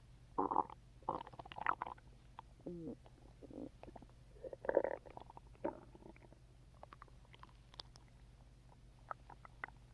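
A person's stomach growling and gurgling after a drink of Coke: a run of short gurgles and rumbles, loudest about five seconds in, one sliding down in pitch near three seconds. After about six seconds only faint small pops and clicks remain.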